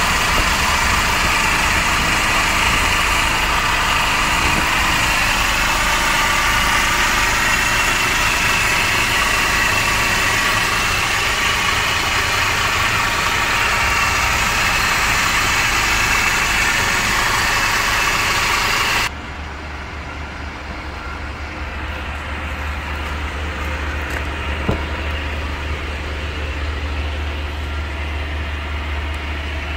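Hyundai Porter II truck's engine idling steadily, heard close up in the open engine bay; about two-thirds of the way in the sound drops suddenly to a quieter, lower hum.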